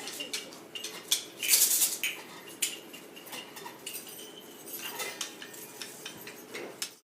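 Small hand percussion being played loosely: light metallic clinks and taps with a faint ringing, and a louder rattling shake about one and a half seconds in. The sound cuts off abruptly at the end.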